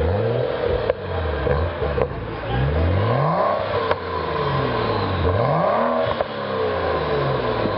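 BMW 335i's turbocharged straight-six, fitted with an aftermarket downpipe and Vishnu exhaust, being revved repeatedly while parked: the engine note climbs and falls back several times.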